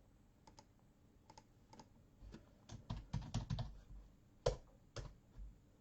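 Typing on a computer keyboard: a few scattered keystrokes, then a quick run of keys, with two louder clicks near the end.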